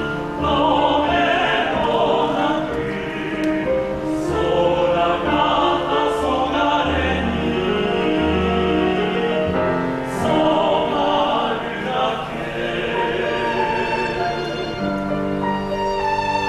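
Men's vocal ensemble singing a slow Japanese Shōwa-era popular song in multi-part harmony. Near the end the voices drop out and a solo violin carries the melody on.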